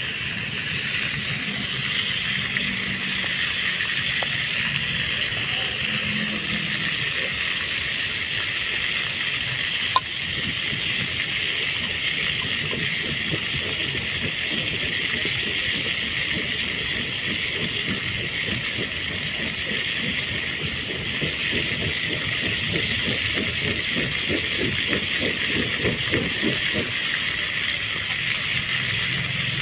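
Banana fritter batter frying in oil in a small pan over a wood fire: a steady sizzle, with quick crackling bubbles joining in from about a third of the way in. One sharp tap about ten seconds in.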